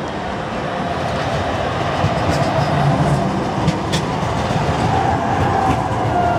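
Bombardier CR4000 tram passing close by on street track: a rumble of steel wheels on rail that grows louder, with a few sharp clicks. Near the end a whine falls slightly in pitch.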